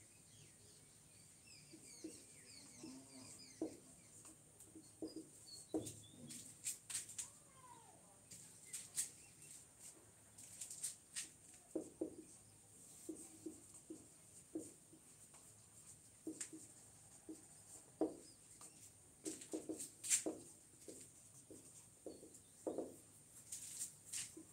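Quiet marker pen writing on a whiteboard: a string of short strokes and squeaks, one word after another, over a faint steady high hiss.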